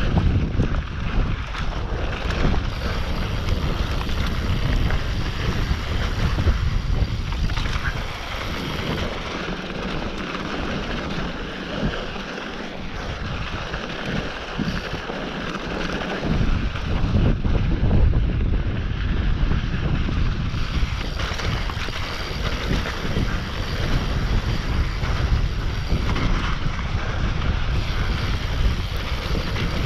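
Mountain bike rolling fast down a dirt trail: a steady rush of wind buffeting the microphone over the rumble and rattle of the tyres and bike. The low rumble eases for several seconds about ten seconds in, then picks up again.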